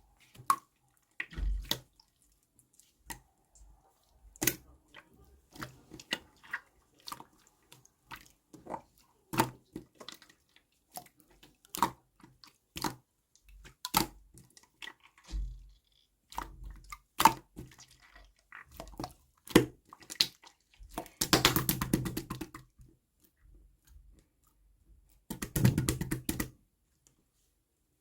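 Scattered sharp taps and clinks of cups, utensils and containers being handled while making grapefruit ade. Two busier stretches of rapid clattering or rattling, each lasting a second or two, come about three-quarters of the way through and again near the end.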